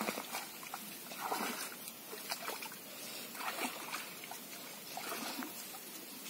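Wading through shallow water in a flooded rice paddy: irregular splashes and sloshes about once a second as legs move through the water.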